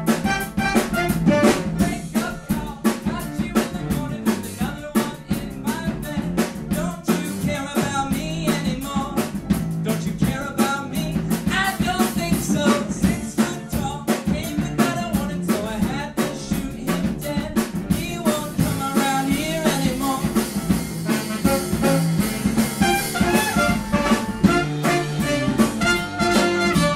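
Live small band playing: saxophone and trumpet carry the melody over keyboard, electric guitar and drum kit, with a steady beat.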